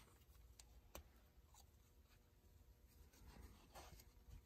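Near silence: faint room tone, with a small click about a second in and a few light taps near the end.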